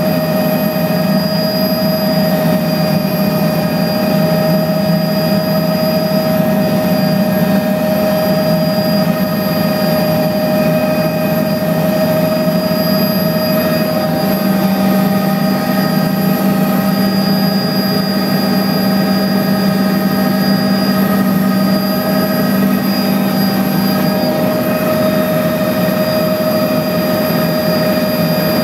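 Small aircraft's engine running steadily, heard from inside the cabin as a loud continuous drone with a strong steady hum.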